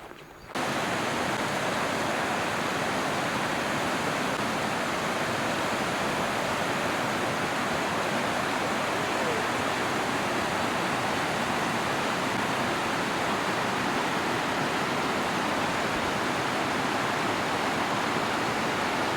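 Waterfall rushing: a steady, even roar of falling water that cuts in suddenly about half a second in.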